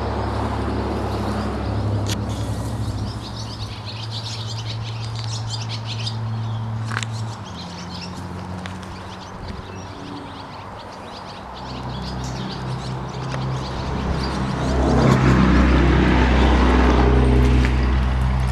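Small birds chirping throughout, over a low steady hum.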